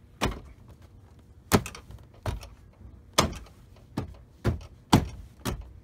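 Hand blows on the lower trim panel of a Jaguar X300 XJ6 door: eight sharp knocks at uneven intervals as the panel's plastic push fasteners are pressed home into the door.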